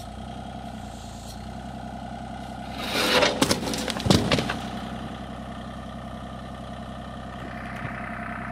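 Bobcat E35 mini excavator's diesel engine running steadily while its bucket pushes over a cut section of cinder-block wall. The blocks crash down loudly about three seconds in, with a second heavy crash about a second later.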